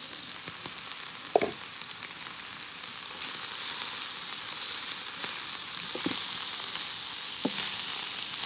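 Meat sizzling as it fries in a pan, with a few knocks and scrapes as it is stirred: once about a second and a half in, then twice near the end.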